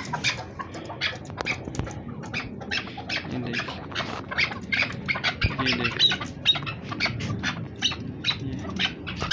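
Chukar partridges calling: a rapid run of short, harsh clucking notes, about four a second.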